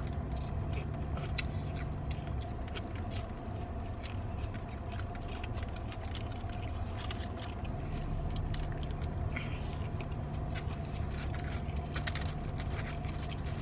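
Close-up eating sounds: chewing, smacking and biting into lemon-pepper chicken wings, as many small wet clicks, over the steady low hum of the car.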